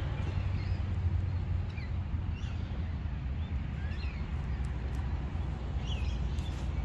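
A few short, scattered bird chirps over a steady low rumble.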